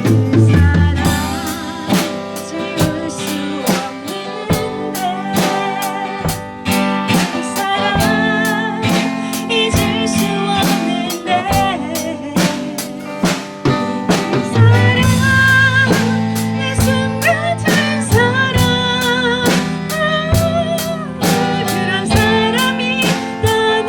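Background music with drums, guitar and a singing voice, a steady beat.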